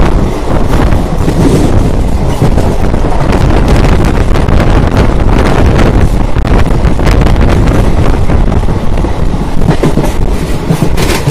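Wind buffeting the phone's microphone at the open window of a moving passenger train, loud and gusty, over the train's steady running rumble.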